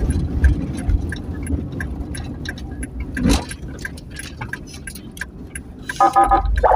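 A motor vehicle's engine runs with a low rumble under many rapid light clicks, with a single thump about three seconds in. Near the end a pitched sound with several stacked tones starts.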